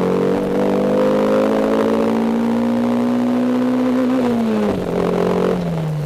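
Toyota AE92 Corolla GTi's 4A-GE twin-cam four-cylinder, mounted on solid 90A polyethylene engine mounts, heard from inside the cabin while driving. The engine note rises steadily as it pulls, drops sharply about four seconds in as the revs fall, and settles lower near the end.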